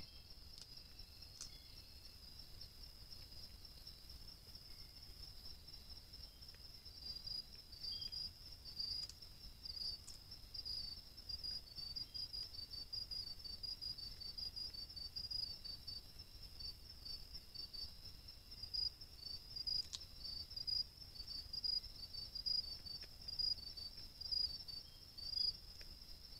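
Night insects calling steadily: one continuous high shrill with many short, irregular chirps over it. A few faint, sharp clicks stand out.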